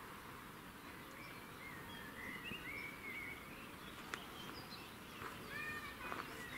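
Birds singing faintly: short whistled phrases that glide up and down, repeated every second or so, over a steady outdoor background hiss, with a sharp click about four seconds in.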